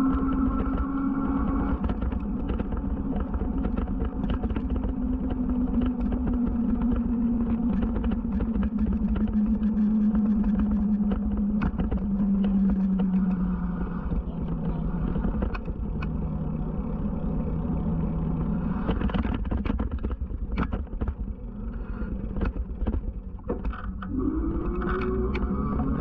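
Electric bike motor whining over wind rumble on the microphone. The whine's pitch sinks gradually, then climbs again near the end, with a run of sharp ticks and knocks shortly before.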